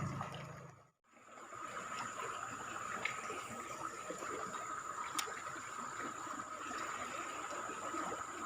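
Flowing river water trickling steadily, with a faint steady high-pitched hum over it. The sound drops out briefly about a second in.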